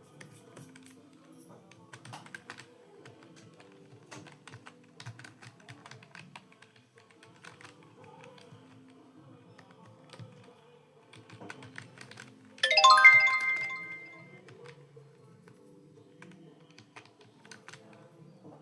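Computer keyboard typing, scattered key clicks over soft background music. About two-thirds of the way through, a loud bright chime rings out suddenly and fades over a second or two.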